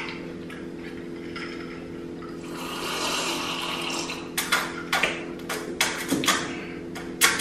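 Close-up mouth sounds of drinking: a stretch of sipping about three seconds in, then a quick run of wet smacks and gulps over the last three seconds, over a steady low hum.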